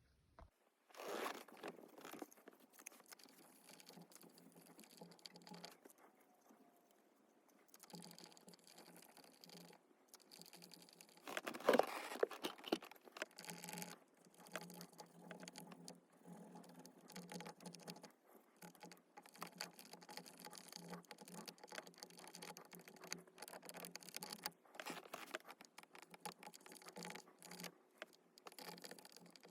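Faint, irregular scratching and rubbing of a cotton swab scrubbing the sticky soft-touch coating off plastic steering-wheel buttons. Louder strokes come about a second in and again around twelve seconds.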